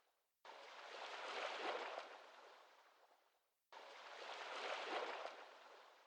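Faint wash of waves, in two surges that start suddenly and fade away over about three seconds each.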